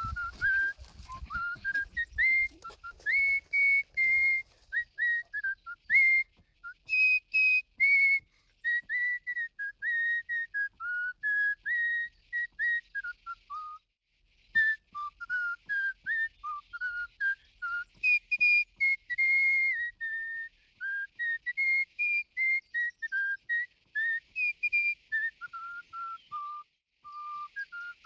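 A whistled melody: a tune of many short, clean notes stepping up and down, with a brief pause about fourteen seconds in.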